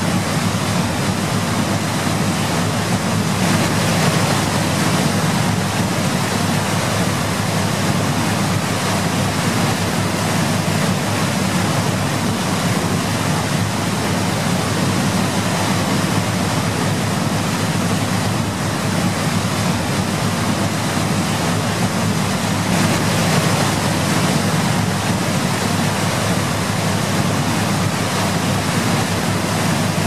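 Steady rain falling, an even, unbroken hiss with no thunder.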